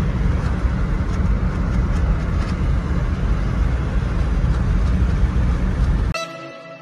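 Steady road and engine noise inside a moving car's cabin: a low rumble with hiss above it. It cuts off near the end as electronic outro music begins.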